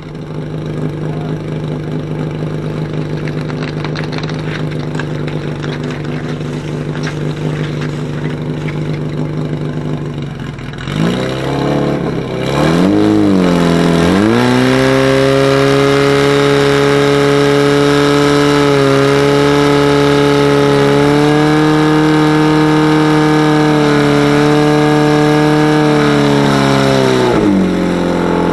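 Portable fire pump engine running steadily at low revs, then revving up about eleven seconds in with a brief waver before climbing to full throttle and holding there, pumping water from the tank through the suction hose. The revs drop again near the end.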